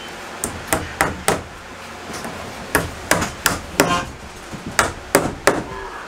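Hammer driving cable staples over electrical wire into wooden wall studs: three quick runs of three or four sharp strikes, with short pauses between.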